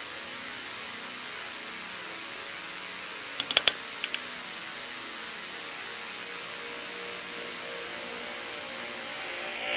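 Steady hiss, with a quick cluster of sharp clicks about three and a half seconds in and two fainter clicks just after.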